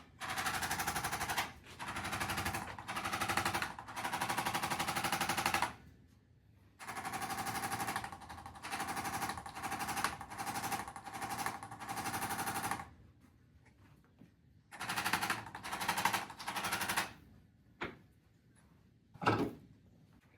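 Handheld percussion massager hammering rapidly on the upper back and neck muscles, in several runs of a few seconds each with short pauses between, the longest about six seconds.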